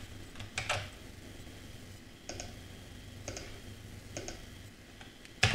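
Scattered sharp clicks from a computer mouse and keyboard, a handful spaced about a second apart, some in quick pairs. A louder cluster of clicks comes right at the end.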